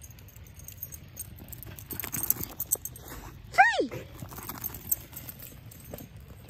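Dogs running up over wood chips with collar tags and harness jingling, and one short, high dog bark rising and falling in pitch about three and a half seconds in.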